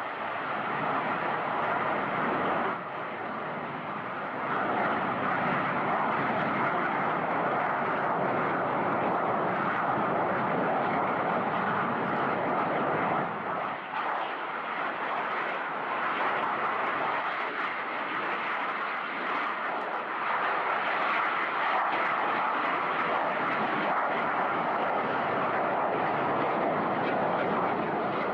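Snowbirds formation of CT-114 Tutor jet trainers taking off, a loud steady jet engine noise that holds throughout with only brief small dips.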